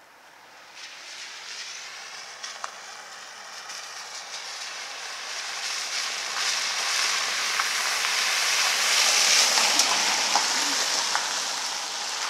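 A car driving through shallow flood water on a lane, its tyres swishing and spraying through the water. It grows steadily louder as it approaches and is loudest as it passes close, about nine to ten seconds in, then eases off.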